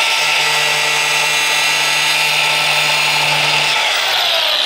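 Milwaukee angle grinder with a thin cut-off wheel running at speed, cutting a car body panel along a taped line. About four seconds in it is lifted off and released, and its whine falls in pitch as the wheel spins down.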